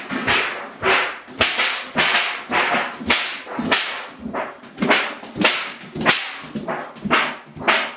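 A child's noisemaker toy set off again and again, a rapid string of short, sharp noisy bursts, about two a second.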